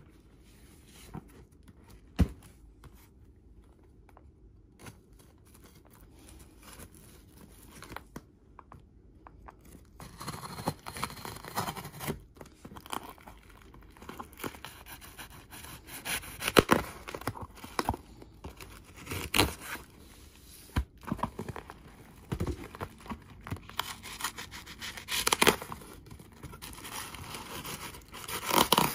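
A knife cutting through fibre-reinforced packing tape on a cardboard shipping box, then the tape torn and the box and its plastic wrapping pulled open: a run of scraping, ripping and crinkling noises. Before this, about ten seconds of near quiet broken by a single knock about two seconds in as the box is handled.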